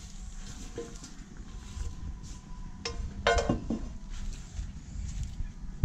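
Metal ladle scraping and knocking in a wok and clinking on a glass bowl as roasted crickets are scooped out, with scattered knocks.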